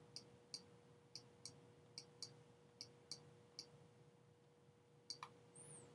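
Near silence with about ten faint, irregular clicks of a stylus tapping on a pen tablet while writing, over a faint steady hum.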